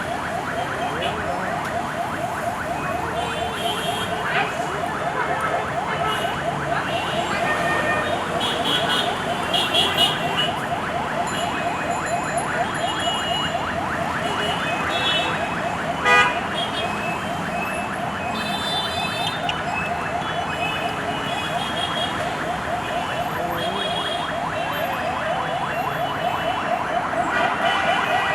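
Jammed road traffic under a siren-type warble: a fast, wavering tone that repeats many times a second and runs on unbroken. Short horn toots sound over it now and then, and there is a sharp knock about 16 seconds in.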